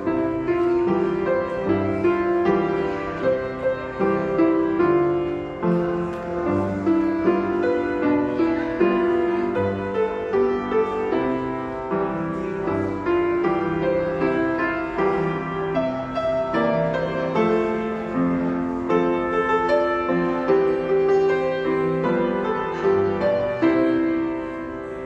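Grand piano playing a Chinese New Year song in a full, chordal arrangement with a steady pulse.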